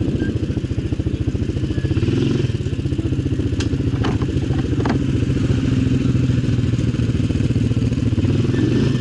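ATV engine running steadily at an even speed, with a few sharp clicks or knocks about halfway through.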